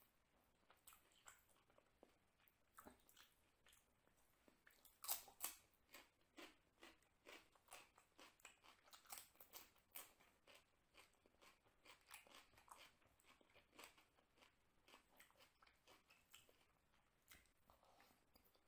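Chewing a mouthful of chicken biryani eaten by hand: a steady run of faint, short mouth clicks, with the loudest few about five seconds in.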